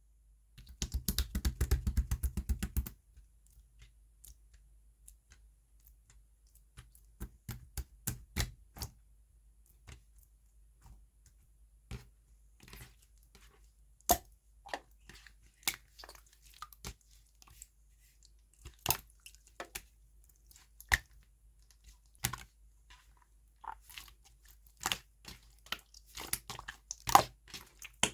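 Clear light-green slime being pressed and stretched by hand, making sticky pops and clicks: a fast crackling run near the start, then scattered sharp pops.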